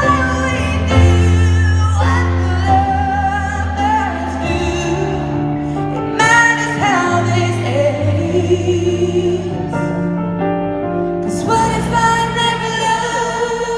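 Live pop ballad through an arena sound system: a female lead vocal singing a wavering melody over held keyboard chords and deep bass notes.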